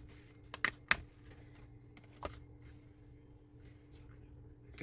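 Small model-kit pieces being handled and fitted together: a few sharp clicks and taps in the first second, another a little after two seconds, and one more near the end, over a faint steady hum.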